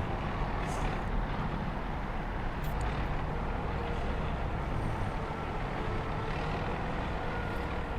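Steady low mechanical rumble, with a faint steady whine above it.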